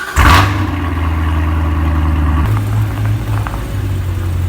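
Car engine running as the vehicle pulls away, louder for a moment just after the start, then a steady low drone that changes pitch slightly about halfway through.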